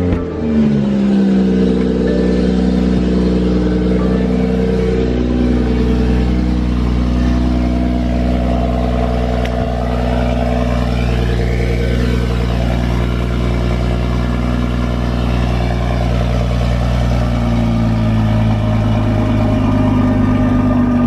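BMW M340i's turbocharged 3.0-litre inline-six on its stock cat-back exhaust with a catted downpipe, just after a cold start: a brief rev flare right at the start that falls away within a couple of seconds into a steady cold idle.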